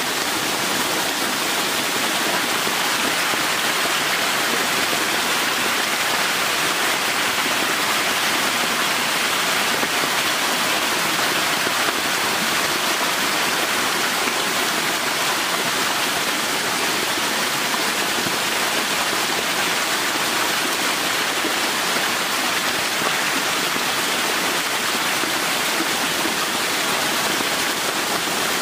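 Steady rush of water jetting from an inflow pipe into a shallow concrete tank crowded with catfish, mixed with the splashing of the fish at the surface.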